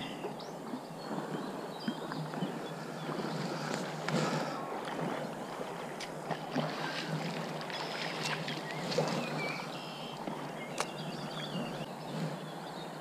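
River water lapping and sloshing close by, with a few small scattered clicks and splashes.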